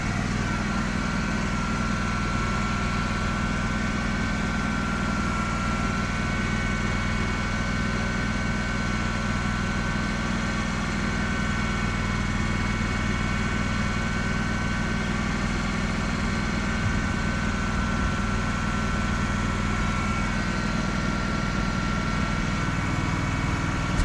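A machine running steadily: an even low hum with a thin, steady whine above it, unchanged throughout.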